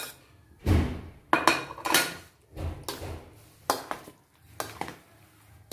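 A spoon clattering and scraping against a ceramic plate and a stainless steel mixing bowl as diced mango is scraped off the plate into the bowl and stirred in: a series of separate knocks and scrapes, roughly one every half second to a second.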